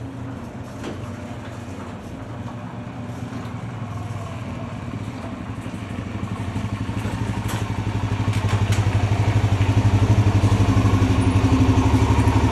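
Motorcycle engine running, growing louder through the middle and staying loud near the end, with a few clicks along the way.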